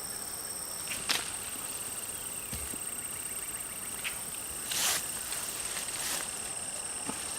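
Insects, likely crickets, trilling steadily at several high pitches. A few short scrapes and rustles of hands digging through loose garden soil stand out, the loudest about a second in and near five seconds.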